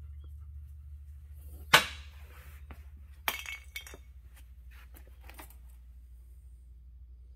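Two sharp clicks, the first and loudest about two seconds in and a second one about a second and a half later, with a few faint ticks, over a steady low hum.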